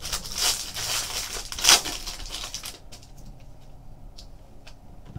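Foil wrapper of a hockey card pack crinkling and tearing as it is opened, loudest about a second and a half in. The crinkling stops about three seconds in, leaving a few faint ticks.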